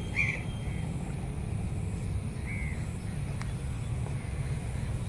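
Open-air ambience: a low steady rumble with a few short bird calls, two just after the start and one about two and a half seconds in.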